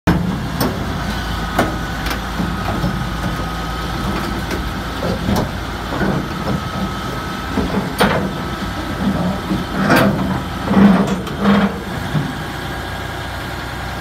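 Caterpillar D8N bulldozer's diesel engine running steadily as it crawls up onto a lowbed trailer. Its steel tracks clank sharply on the trailer deck about eight times at irregular intervals, loudest near the end.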